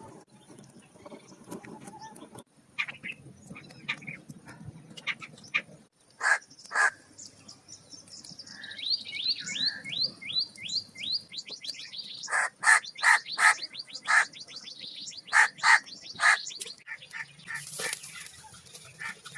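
Birds calling: a fast run of short rising chirps about nine seconds in, then a series of sharp repeated calls.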